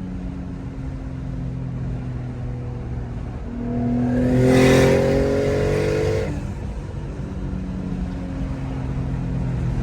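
Twin-turbocharged Infiniti G35's 3.5-litre V6 running steadily under way, then accelerating hard about three and a half seconds in: its pitch rises for nearly three seconds, with a rushing hiss at the loudest point, before it eases back to a steady cruise. The turbos are making only about 5 psi of boost on this pull.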